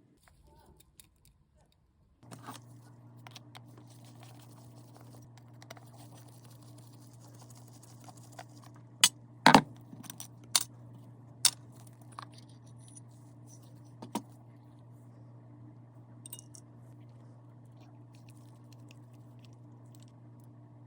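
Small metal parts and tools clinking and clicking against each other and a hard surface. There are several sharp clicks, the loudest in a cluster near the middle, over a steady low hum that starts about two seconds in.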